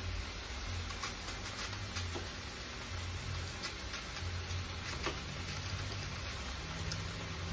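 Cabbage, bacon and sausage frying in a large pan: a steady sizzle with a few faint ticks, over a low hum.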